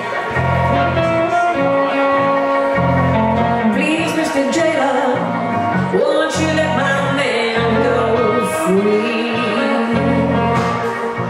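Live blues played on a hollow-body archtop electric guitar and a stage keyboard, over a steady pattern of bass notes. Singing comes in about three and a half seconds in and carries on over the band.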